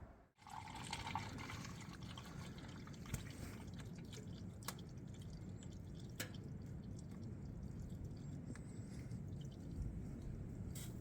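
Engine oil draining and dripping steadily into a drain pan, with a few faint clicks.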